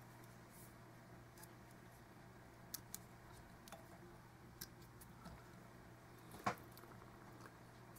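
Near silence with a faint steady hum, broken by a few faint clicks of small scissors snipping excess monofilament from the fly's legs; the loudest snip comes about six and a half seconds in.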